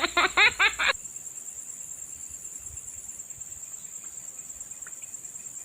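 Steady, high-pitched chorus of insects chirring without a break. A man's voice is heard briefly at the start.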